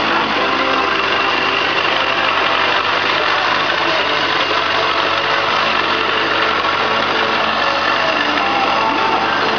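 Kawasaki Voyager XII 1200's liquid-cooled inline-four engine idling steadily.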